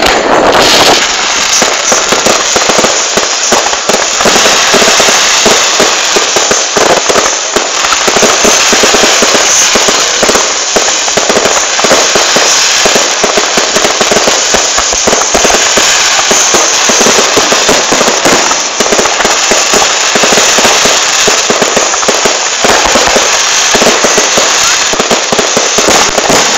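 Fireworks display: a dense, unbroken run of rapid pops and crackles from bursting shells, very loud.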